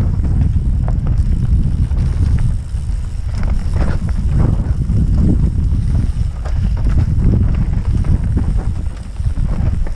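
Mountain bike descending a rough dirt trail at speed: wind buffeting the helmet-mounted camera's microphone over a steady low rumble of tyres on dirt, with frequent sharp knocks and rattles as the bike hits bumps.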